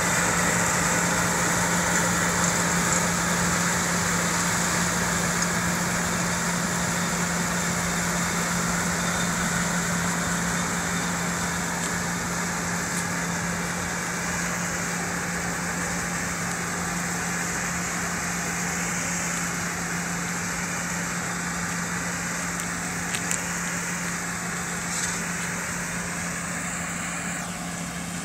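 Tractor and tractor-drawn potato harvester running steadily while lifting potatoes, with a constant low engine hum under the rattle of the machinery. The sound grows gradually fainter as the machine moves away.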